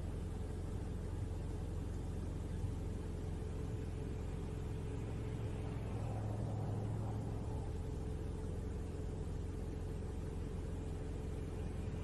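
Pickup truck engine running as the truck creeps along a snowy street, a steady low rumble that swells slightly a little past the middle.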